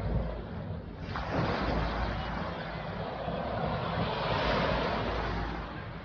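Small waves breaking and washing up the sand at the water's edge, a rush that swells from about a second in and eases off near the end. Wind buffets the microphone.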